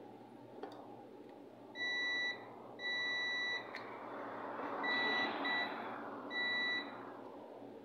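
Digital multimeter's continuity buzzer beeping five times, from short blips to nearly a second long, each time the test probes touch points on the repeater's circuit board and find a connection, as in checking the board for a short circuit.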